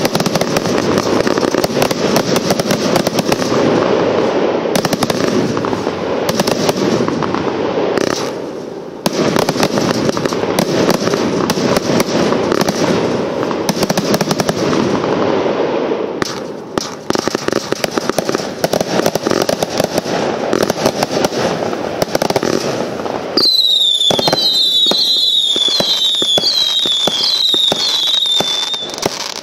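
A Nuclear Shockwave 600-shot compound firework cake firing in rapid volleys: a dense, continuous string of shots, bangs and crackling, with two brief lulls between sequences. Near the end, a run of about seven short, high whistles, each falling in pitch, sounds over the crackle.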